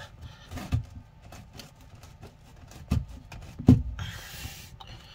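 Handling noise from a hand working at a hose fitting on a marine toilet's plastic pump housing: a few irregular knocks, the loudest about three and a half seconds in, and a brief rustle after it.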